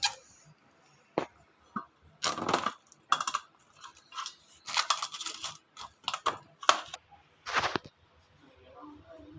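A run of sharp clinks and knocks of kitchen dishes and utensils being handled, about eight or nine separate clatters with short pauses between.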